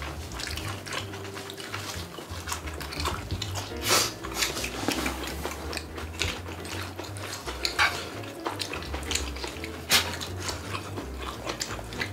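Utensils clinking and scraping against a shared pan and bowls as food is ladled out and eaten: scattered small knocks, the sharpest about four and ten seconds in.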